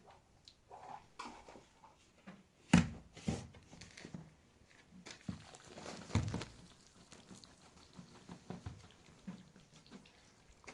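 Scattered knocks and thumps, the loudest about three seconds in and again about six seconds in, with lighter taps between them.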